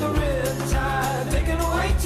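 Background music: a song with a singing voice over a steady bass and beat.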